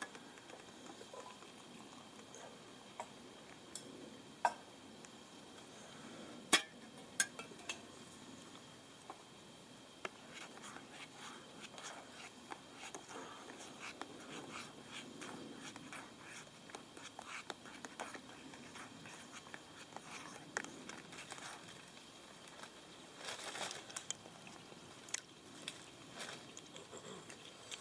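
Faint handling noise: scattered light clicks and taps with a little rustling, one sharper click about six and a half seconds in and a short cluster of clicks near the end.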